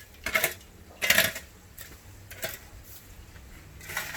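A few short, sharp clatters of hard objects knocking together, spaced about a second apart.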